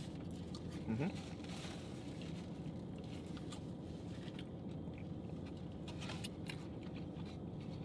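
Eating sounds: chewing and fast-food wrapper paper rustling, with scattered small clicks over a steady low background hum. A short rising 'hm' from a voice about a second in.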